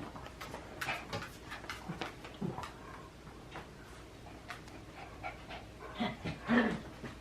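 Dog panting and snuffling close by, with scattered small clicks and a couple of louder huffs about six seconds in.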